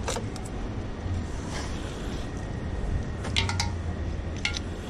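Motorcycle engine idling with a steady low hum, with sharp plastic clicks and rattles as a phone is unclipped from its handlebar mount: one at the start, a cluster about three and a half seconds in, and one more near the end.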